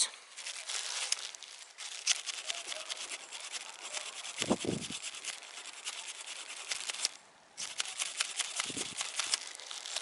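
Sandpaper scraping in quick, rapid strokes against the inside of a rusty metal carbon-brush holder sleeve from an electric lawn mower motor, mixed with plastic gloves crinkling. The sanding is cleaning off the rust and corrosion that makes the carbon brush stick in the sleeve. The scraping stops briefly about seven seconds in.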